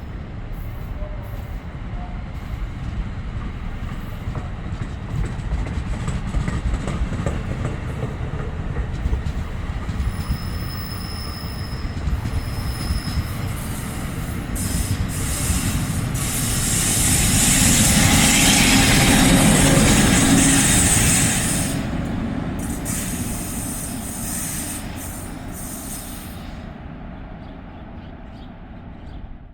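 NJ Transit commuter train running through the station: a steady rumble of wheels on rail swells to its loudest, with a hiss of high noise, about eighteen to twenty-one seconds in, then fades away. A thin high wheel squeal sounds briefly around ten to thirteen seconds in.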